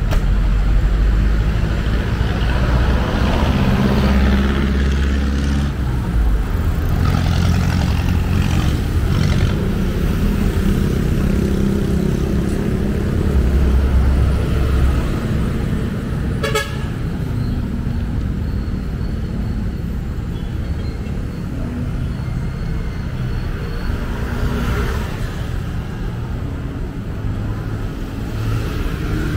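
Busy road traffic: vehicle engines and tyres rumbling steadily, with car horns tooting and a brief sharp click about halfway through.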